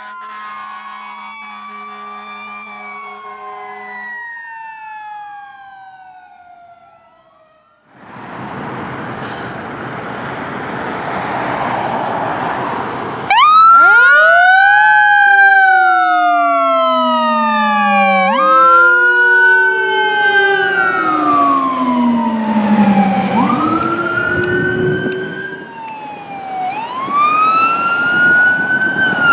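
Fire engine pulling out on a call: a diesel engine runs for a few seconds, then about midway its sirens start, overlapping wails that rise sharply and slowly fall. They include a Federal Q mechanical siren and a low Rumbler tone. Near the end a second vehicle's electronic siren wail rises, and the opening seconds hold a siren-and-tone intro sound.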